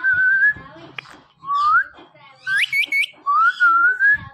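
Indian ringneck parrot whistling: a string of about four rising whistles, some held with a wavering pitch, one breaking into quick upward chirps.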